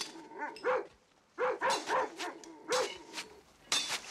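A dog barking repeatedly in short, separate barks, with a brief pause about a second in.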